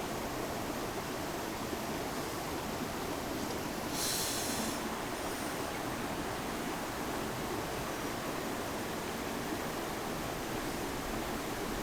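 Steady rush of a shallow river's flowing water, with one short, louder hiss about four seconds in.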